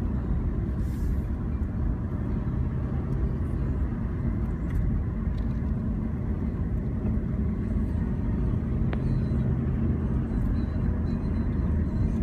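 Steady low road and engine rumble of a car driving at low speed, heard from inside the cabin.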